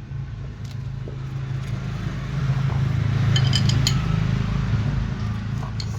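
A motor vehicle engine running steadily, growing louder around the middle and then easing off, with a few light metallic clinks of tools on the clutch hub about halfway through.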